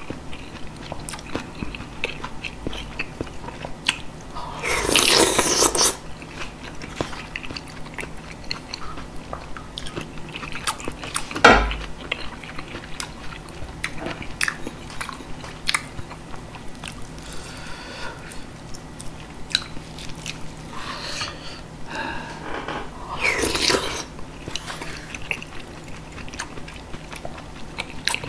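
Close-miked chewing and biting of spicy beef soup (yukgaejang) with rice, with frequent small wet mouth clicks. Two longer noisy stretches of about a second come about five seconds in and again near the end. A single sharp knock midway is the loudest sound.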